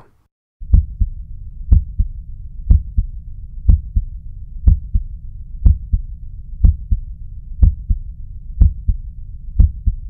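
Normal human heart sounds, S1 and S2 (lub-dub), heard through a digital stethoscope. Steady beats at about one a second begin about half a second in, each a sharp thud followed closely by a softer one, over a low steady stethoscope hiss.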